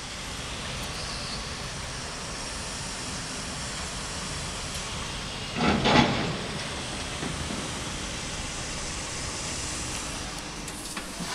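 Steady hum and hiss of distant city traffic through an open window, with one louder passing swell about six seconds in.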